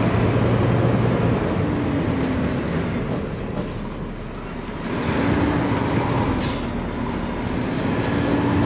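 Mack garbage truck's engine running as the truck drives slowly, heard from inside the cab. The engine eases off around four seconds in and picks up again about a second later. There is a brief hiss of air at about six and a half seconds.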